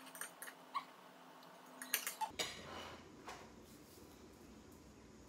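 Knife and fork clicking and scraping on a plate while cutting a pancake: a quick run of light taps over the first two seconds, then only faint background.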